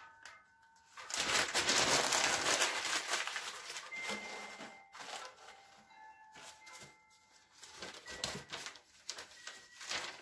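A sheet of newspaper being crumpled into a wad by hand: a loud dense crinkling from about a second in to about five seconds, then quieter rustling and crinkling of paper.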